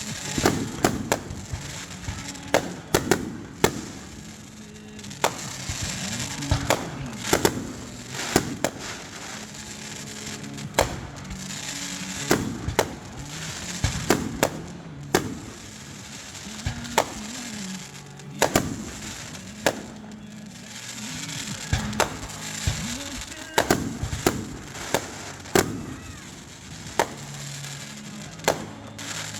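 Fireworks going off in a rapid, irregular run of sharp bangs, many close together, with crackling between them. Music plays underneath.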